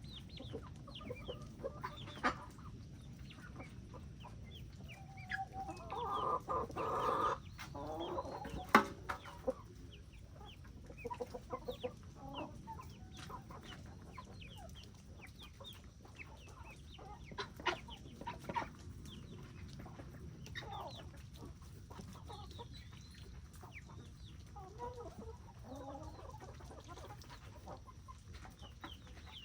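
A flock of chickens clucking while they feed, with many short sharp ticks of beaks pecking. The clucking gets louder and busier for a couple of seconds about six seconds in, and a single sharp knock comes soon after.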